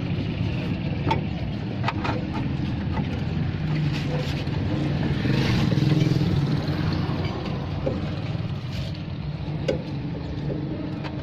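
Steady low engine hum that swells to its loudest about six seconds in and then eases off, with a few sharp metallic clicks as the rear coil spring and shock are handled.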